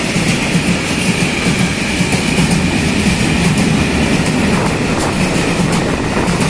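Freight wagons of a passing train rolling by at speed: a steady, loud rumble of steel wheels on rail, with a high hiss over it and repeated clacks as the wheels cross rail joints.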